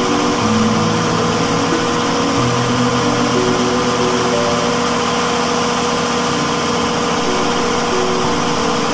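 Large generator set's engine running steadily at constant speed, with a constant whine over its drone. Background music plays over it, its low notes changing every second or so.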